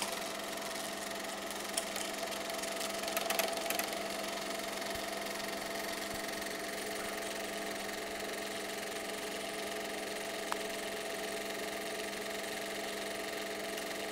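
Elmo K-110 SM dual 8 film projector running steadily: motor hum with the even chatter of the film transport mechanism. A few brief clicks and knocks come about two to four seconds in, and one more past the middle.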